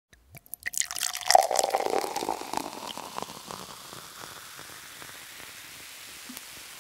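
Liquid pouring and splashing, densest and loudest about a second in, thinning out into a steady hiss.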